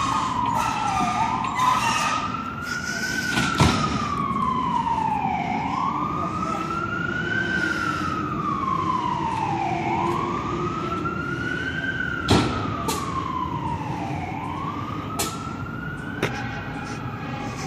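Fire truck siren on a slow wail, rising and falling about every four seconds over a steady lower hum. Two sharp knocks cut in, one a few seconds in and one past the middle.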